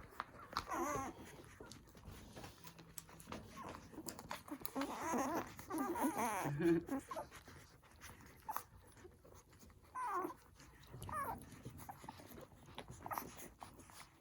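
Newborn poodle puppies squeaking and whimpering as they nurse. The calls come in several bouts, the longest about five to six and a half seconds in, with scattered small clicks between.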